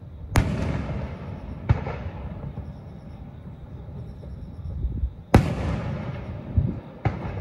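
Aerial firework shells bursting: four sharp booms in two pairs, one near the start and one just over a second later, then again about five seconds in and near the end, each trailing off in a long echo.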